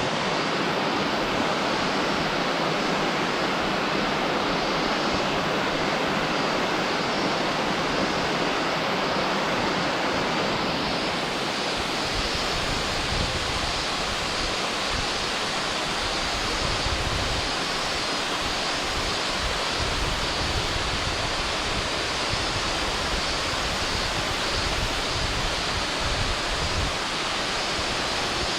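Waterfall pouring steadily, a loud, even rush of falling water. Irregular low rumbles join it from about twelve seconds in.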